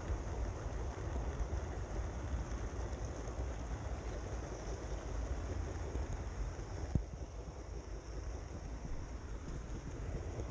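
OO gauge model train running along the track, heard from a camera riding on it: a steady rumble and rattle of small wheels on rail with a thin high whine above it, and one sharp click about seven seconds in.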